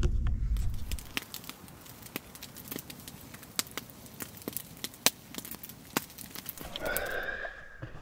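Wood campfire crackling, with many sharp, irregular pops over a faint hiss, after a second of low rumble. Near the end a short breathy sound rises briefly over it.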